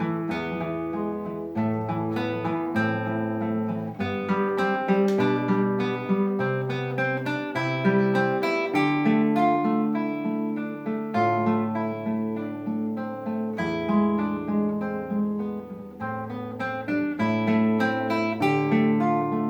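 Solo classical guitar playing an étude: a steady run of plucked, arpeggiated notes over held bass notes.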